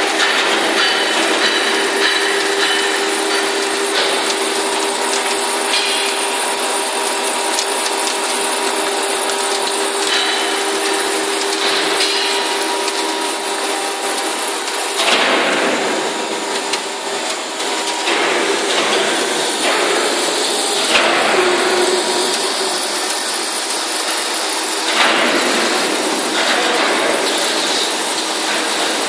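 Large CNC lathe turning a steel roll: a steady machine hum with a few held tones over metal-cutting and shop noise. The sound grows rougher and noisier about halfway through.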